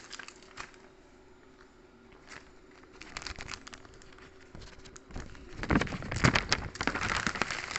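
Clear plastic accessory bags crinkling and rustling as they are handled, starting as scattered crackles and getting loud and dense in the last two seconds. A faint steady hum sits underneath in the first part.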